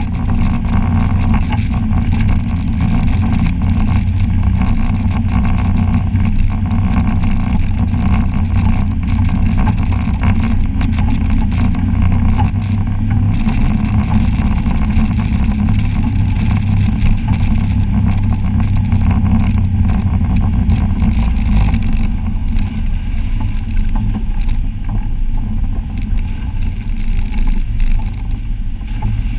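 Side-by-side UTV's engine running steadily under way on a rough trail, with frequent short clatter and ticks over the drone. It eases off somewhat after about twenty seconds.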